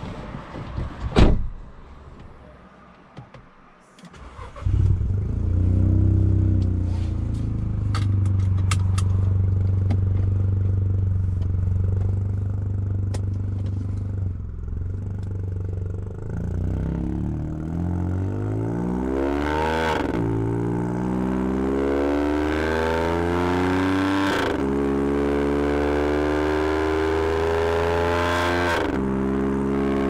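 A car door shuts about a second in, then the VW Polo TSI's engine, stage 2 remapped with an aftermarket exhaust, starts and idles steadily, heard from inside the cabin. About halfway through the car pulls away, the engine pitch rising through the gears with three upshifts.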